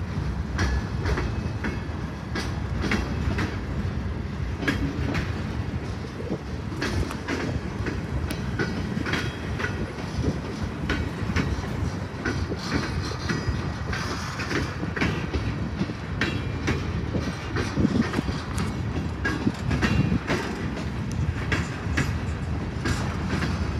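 Freight train cars rolling past on the track: a steady low rumble of steel wheels with clickety-clack over the rail joints and many sharp metallic clicks and clanks.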